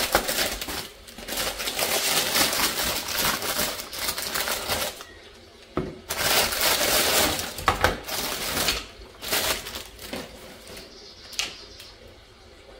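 Loud crackling, rustling handling noise full of fine clicks, in two long stretches with a short pause between, then a few separate sharp clicks near the end.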